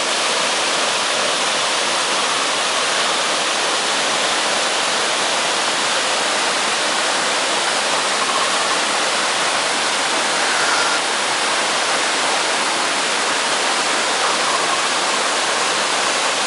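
Waterfall roar: a steady, loud rush of falling water, even and unbroken.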